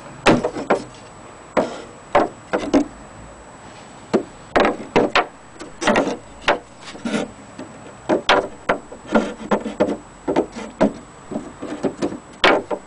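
Irregular knocks, taps and thuds on the hollow wooden case of an old longcase clock as it is handled, coming in clusters of a few strikes at a time.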